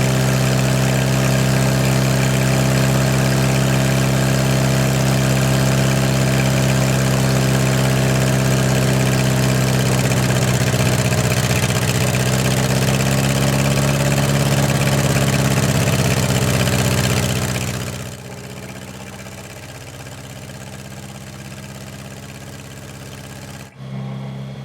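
Old Hobart engine-driven welder's gasoline engine running steadily, revived after sitting for 15 years and running smoothly. About 18 seconds in it becomes much quieter.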